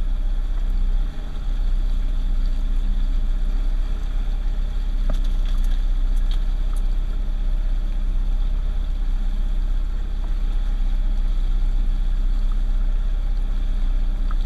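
Johnson 115 outboard motor running steadily at low trolling speed: a constant low rumble.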